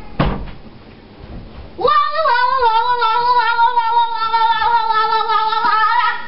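Two knocks, then about two seconds in a boy lets out one long, high-pitched yell held on a nearly steady, slightly wavering pitch for about four seconds.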